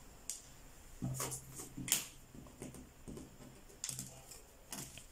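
A clear plastic ruler, pen and paper pattern pieces being handled on a wooden tabletop: scattered sharp clicks, taps and paper rustles, the loudest just before the middle. Twice a short low hum sounds under the handling.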